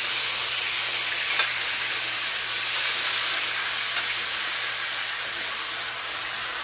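Hot skillet sizzling steadily as marinated chicken gizzards and tomato are spooned into it from a bowl, with a couple of faint clicks, one about a second and a half in and one about four seconds in.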